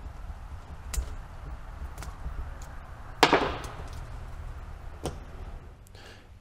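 Sharp metal clicks and taps about a second apart, with one louder clack about three seconds in, as a steel pick works at the inner seals of a log splitter's hydraulic cylinder part. A low steady hum runs underneath.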